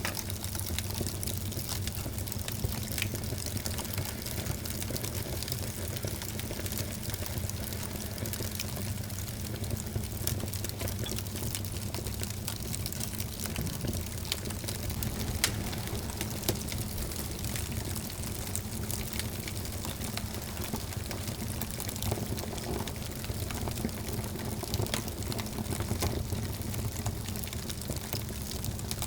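Wood fire burning in a fireplace: a steady hiss with frequent small crackles and a few sharper pops.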